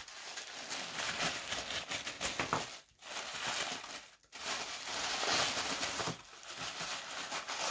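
A thin white wrapping bag crinkling and rustling as hands rummage in it and pull items out, with brief pauses about three and four seconds in.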